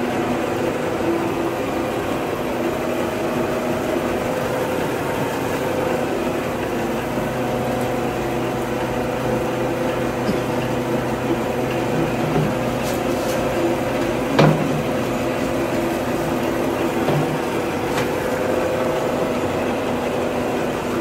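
Belt-driven rice huller running steadily, hulling bamboo-rice paddy fed from its hopper, with a constant mechanical hum. A single knock stands out about two-thirds of the way through.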